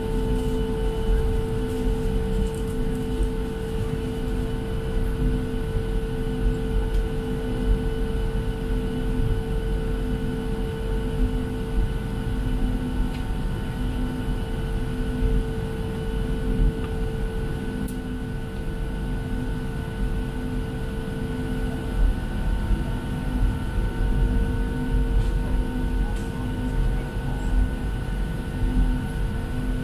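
Cabin noise inside a Boeing 737-700 on the ground: a steady low rumble with several steady whining tones on top and a low tone pulsing about once a second.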